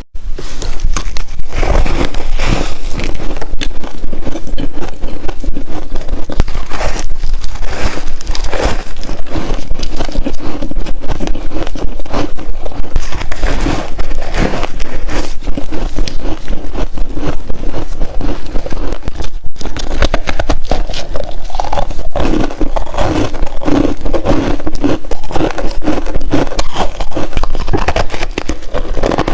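Crunchy freezer frost being bitten and chewed: a loud, dense run of crackling crunches with no pauses.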